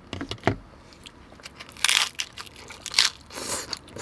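A person biting into and chewing a crispy, grilled birria taco close to the microphone: a run of wet crackly clicks with louder crunches about two and three seconds in.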